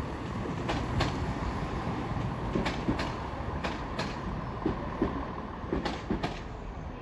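Class 170 Turbostar diesel multiple unit running into the station: a steady rumble with irregular sharp clacks as its wheels cross rail joints and pointwork.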